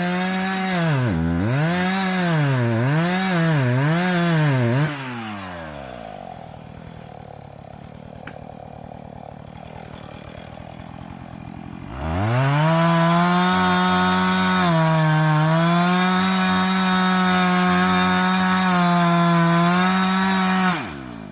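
Two-stroke chainsaw revved up and down four times, then eased off for several seconds, then held at full throttle for about eight seconds while felling a tree, cutting off near the end.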